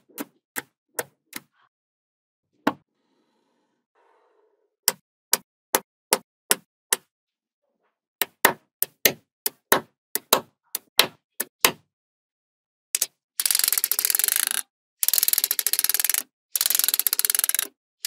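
Small magnetic balls snapping into place with sharp, separate clicks, in runs of about two or three a second. In the last few seconds, a long strand of balls is laid down and snaps on ball by ball, giving a fast rattling run of clicks in bursts about a second long.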